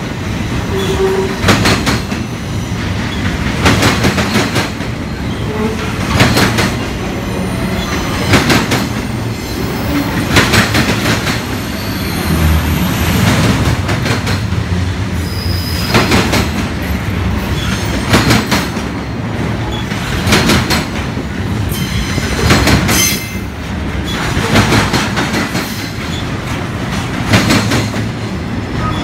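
Double-stack intermodal container train rolling past on its well cars: a steady rumble, with the wheels clacking over the rail joints about every two seconds.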